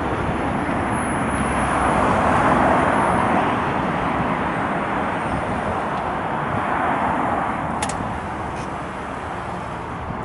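Road traffic noise: a steady rush of passing vehicles that swells about two to three seconds in and eases off later, with one sharp click near eight seconds.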